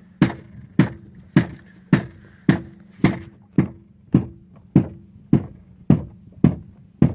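Steady rhythmic hammering on a fishing boat's hull, sharp knocks a little under two a second: bumping the boat to call hybrid stripers and sand bass back under it.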